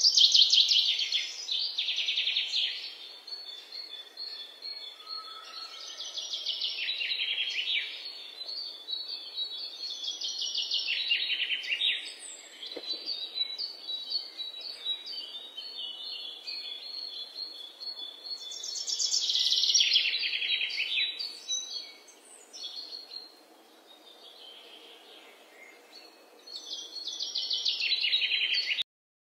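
Songbird singing in repeated bursts of fast, high trills a second or two long, with quieter chirps and thin whistles between them.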